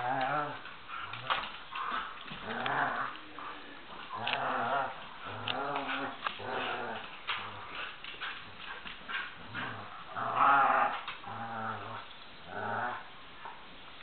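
Dogs play-growling in a tug-of-war over a toy duck: a run of low growls, each about half a second to a second long, coming in quick succession, with scattered light clicks in between.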